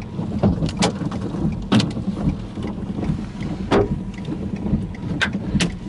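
Large hailstones striking a pickup truck, about half a dozen loud, separate knocks at irregular intervals over a steady low rumble.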